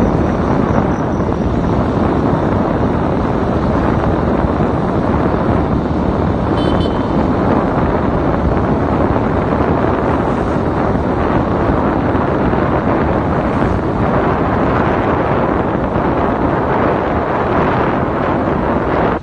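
Steady wind rush on the microphone of a vehicle in motion, with engine and road noise underneath.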